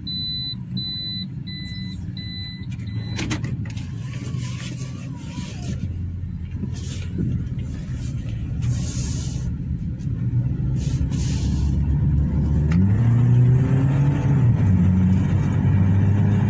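Toyota Corolla engine and road noise heard while the car is driven, with the engine pitch rising about thirteen seconds in as it speeds up. A repeating electronic beep, about two a second, sounds at the start and stops about three seconds in.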